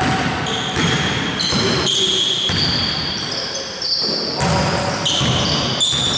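Basketball game on a wooden gym court: players' sneakers squeaking in a dense run of short high-pitched squeaks, with the ball knocking on the floor now and then.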